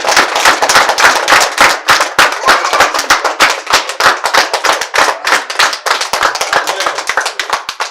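A small group of people clapping their hands in applause: many quick, sharp claps close together, which die away near the end.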